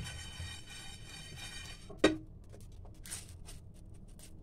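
A sharp knock against a frying pan about two seconds in, among faint rattles of dry ajwain and coriander seeds being dry-roasted in the pan. A steady high-pitched tone with overtones sounds over the first two seconds.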